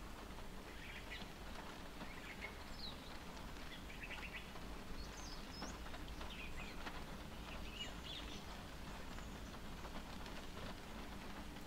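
Rain pattering on a car's windshield and body, heard from inside the car as a steady hiss with many small ticks of single drops. Birds chirp briefly now and then outside through it.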